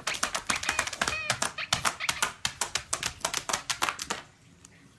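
Quick clicking taps of a dog's claws striking a tablet's glass screen as it paws at it, several a second, dying away about four seconds in.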